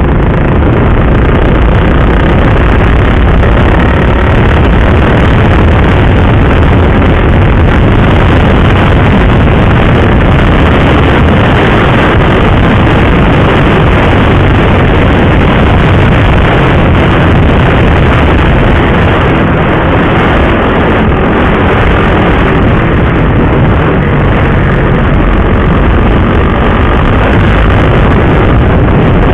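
KTM RC 390 motorcycle riding at steady speed: the engine running under a loud, even rush of wind and road noise, with no marked change in pace.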